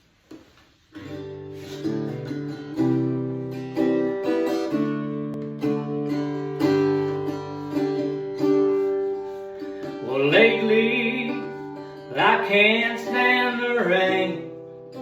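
Acoustic guitar intro to a country song: strummed and picked chords start about a second in. A bending lead melody line enters over the chords twice in the second half.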